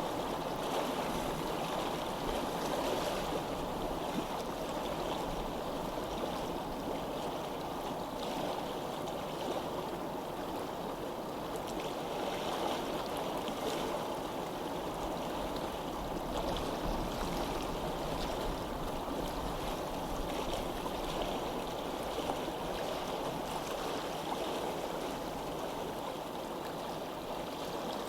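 Flowing water, a steady, even rush like a stream, with no breaks or changes.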